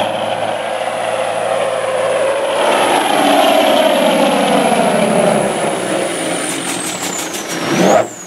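Cabover semi truck's diesel engine at full throttle, pulling a weight sled. The engine note falls steadily as the truck slows under the load, then the throttle cuts off abruptly about eight seconds in.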